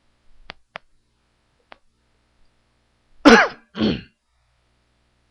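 A few soft mouse clicks, then a man clearing his throat twice in quick succession.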